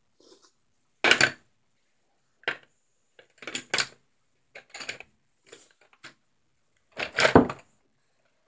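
Handling noise on a wooden tabletop: a scattered series of clicks and knocks as things are moved about, with the loudest knock and thud about seven seconds in.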